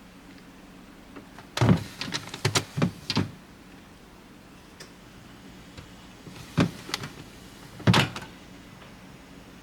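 Knocks and clatters of a refrigerator's doors and drawers being opened and shut: a quick run of knocks early on, then two more single knocks near the end.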